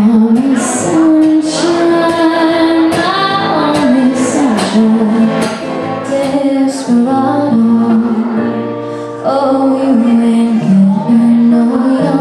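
A woman singing a song with instrumental accompaniment, holding long notes.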